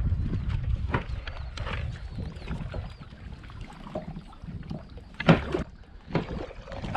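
Kayak on the water in wind: low wind rumble on the microphone over the first few seconds, then a few short, sharp knocks and splashes around the boat, the loudest about five seconds in.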